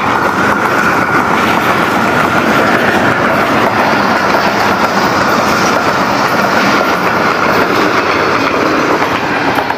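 A train passing close by on the tracks: loud, continuous rattle and clatter of the wagons and wheels over the rails, with a steady high ringing tone running through most of it.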